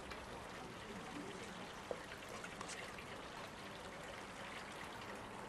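Faint simmering of braised mushrooms in soy sauce and water in a wok, stirred with a spatula, with one light tap about two seconds in.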